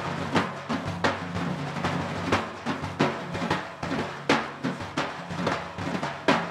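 Two dafs, large Persian frame drums, played together in a fast, driving rhythm of sharp strokes with louder accents about once a second.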